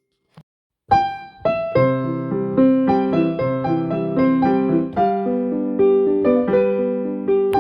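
Solo piano music. After about a second of silence a piece begins, with a steady run of notes.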